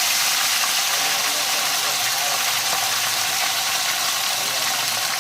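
Loud steady hissing, with faint voices underneath.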